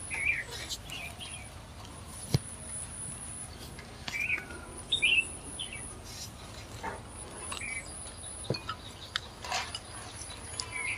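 Small birds chirping in short calls, one every second or so, with a few sharp clicks in between.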